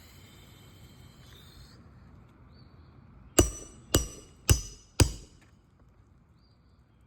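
Four hammer blows about half a second apart, driving a roofing nail down through an asphalt shingle, each with a short metallic ring.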